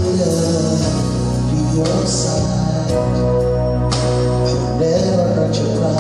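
Gospel song: a man singing into a microphone over instrumental accompaniment with steady held bass and chords and light percussion.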